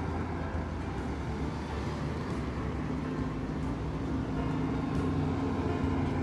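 Road traffic: a Jeep SUV moving slowly past close by and a city bus driving by on the street. A steady engine hum grows a little louder in the second half.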